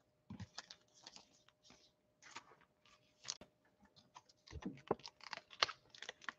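Faint, irregular clicks and rustles of football trading cards and their packs being handled and shuffled.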